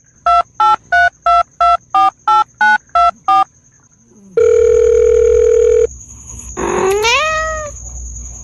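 Telephone keypad beeps: about eleven quick electronic tones in a row, then a steady phone tone lasting about a second and a half. Near the end a cat meows once, the call rising in pitch.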